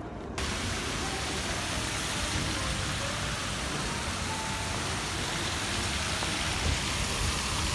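Water from a tiered stone fountain splashing into its basin: a steady rushing hiss that starts suddenly just under half a second in.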